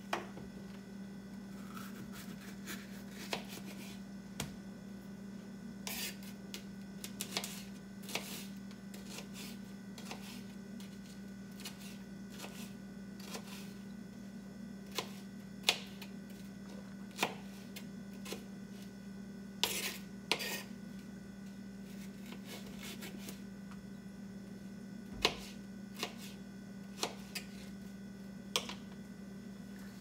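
Kitchen knife dicing a frozen red bell pepper on a plastic cutting board: scattered, irregular taps of the blade against the board, over a steady low hum.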